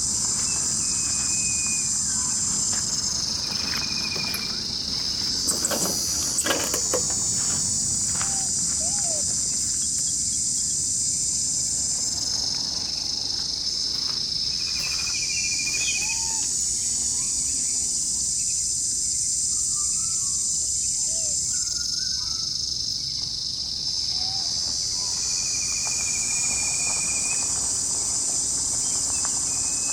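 Outdoor insect chorus: a dense high buzz that eases off and swells back several times. A few short, high, whistle-like calls sound now and then, and a burst of rustling and crackling comes about six seconds in.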